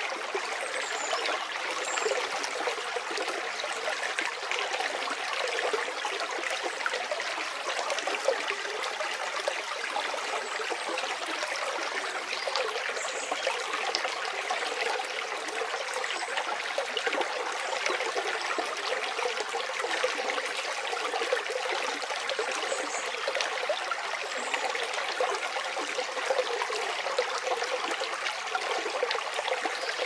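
Forest river flowing: a steady, continuous rush of running water, with a few faint high chirps now and then.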